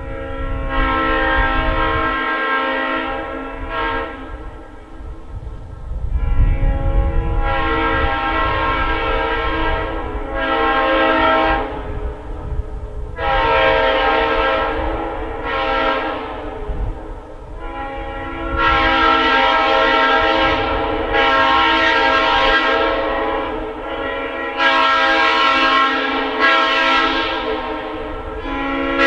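Locomotive air horns sounding a multi-note chord in a series of about ten blasts, each one to three seconds long, over a lower note that holds throughout.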